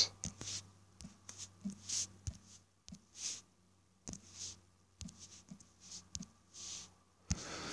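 Light, irregular fingertip taps on a smartphone touchscreen as an IP address is typed on the on-screen keyboard, over a faint steady hum.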